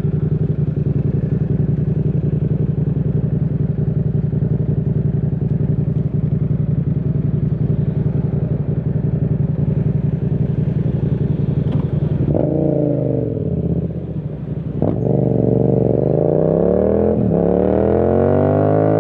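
2021 Yamaha MT-07's 689 cc parallel twin, on a full titanium exhaust with no dB killer, running at a steady speed, then about twelve seconds in the revs rise and fall. Two sharp breaks follow, like gear changes, with the pitch climbing again near the end.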